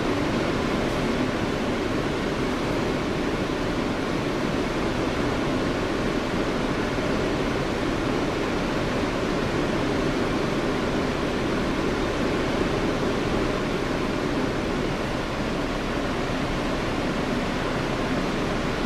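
An R160 subway car running through a tunnel, heard from inside the car: an even, steady rumble of wheels on rail and running gear.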